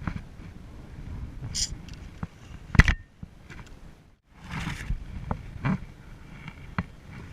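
Knocks and bumps of handling aboard a plastic fishing kayak, scattered through, with one sharp loud knock nearly three seconds in and a short rushing burst just before five seconds.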